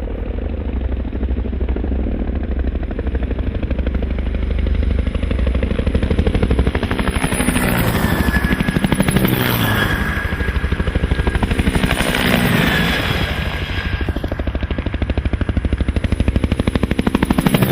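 Helicopter running: a fast, even chopping pulse over a low drone, with a high whine that rises and falls a few times.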